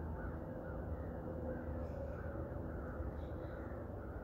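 A flock of crows cawing, many calls overlapping continuously, over a steady low rumble.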